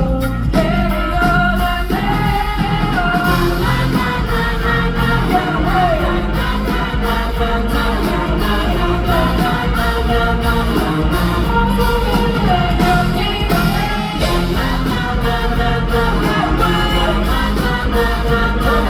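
Live rock band playing with a lead singer during a concert sound check, heard through the hall's reverberation.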